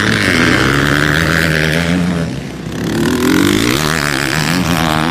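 Motocross dirt bike engine running hard: the note drops briefly about two seconds in, then climbs again as the throttle opens.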